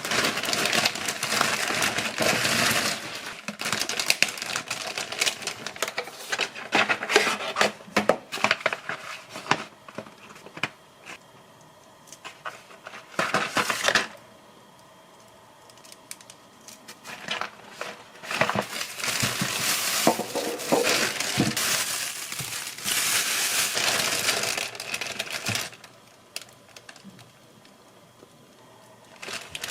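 Rustling and clattering of objects being handled, with many small clicks and clinks, in two long stretches separated by a quieter pause of a few seconds.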